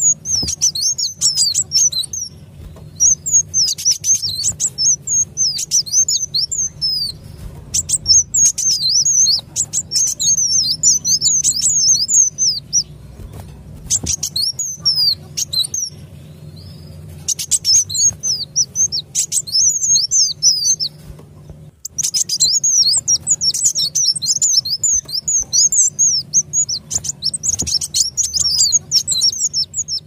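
Kolibri wulung sunbird lure-call recording: rapid, high-pitched twittering chirps in busy bursts of a few seconds, separated by short pauses, over a faint low hum.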